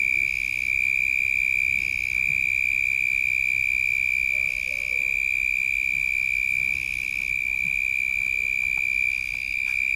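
Continuous high-pitched insect trill, one shrill tone that hardly wavers.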